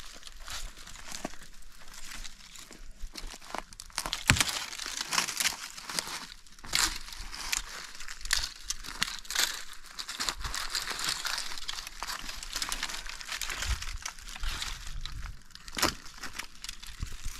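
Irregular crinkling and rustling with many small sharp clicks, like something being crumpled or handled; one sharper crack about four seconds in and another near the end.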